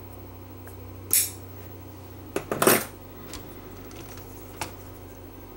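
Small metal tools and parts clinking on a workbench: one sharp clink about a second in, a short clatter of clinks near the middle, then a couple of faint ticks, over a steady low hum.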